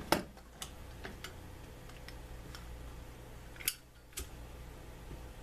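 Butane torch lighter insert in a Zippo case being worked: a few sharp metallic clicks of the lid and igniter, the loudest a little before four seconds in, over a steady faint hiss.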